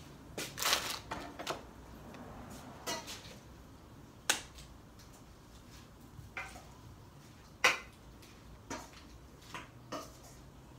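Metal spatula scraping the steel griddle top and knocking against a stainless steel bowl as ground beef and corn are scooped into it. A cluster of scrapes and clicks in the first second and a half, then single sharp knocks every second or two, the loudest about four and seven and a half seconds in.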